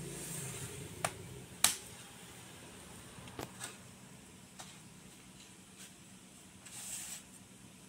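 Plastic bottom cover of an HP 14s laptop being pressed back onto the chassis, its clips snapping into place with a few sharp clicks, two loud ones about a second and a second and a half in and fainter ones after, then a brief rustle near the end.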